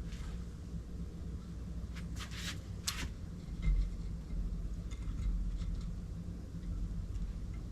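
Light metallic clinks and scrapes of engine parts being handled, about two and three seconds in, and a dull knock just before four seconds, over a steady low hum.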